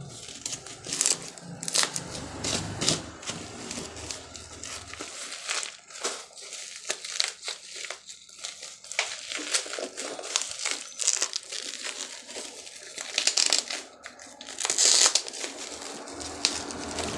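Black plastic bag wrapping on a parcel crinkling and rustling as hands grip and pull at it, in uneven crackles, loudest near the end.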